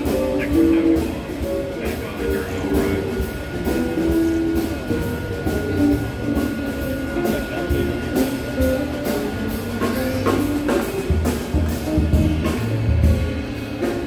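Live band playing: a trumpet over a drum kit keeping a steady beat on the cymbals.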